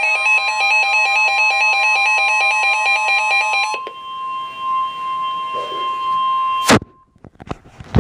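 Electronic emergency alert tones for a severe thunderstorm warning. A fast warbling alarm of several tones plays over a steady tone for about four seconds. Then the steady single-pitch tone sounds alone for about three seconds and cuts off with a loud click, followed by a few small clicks and another sharp click.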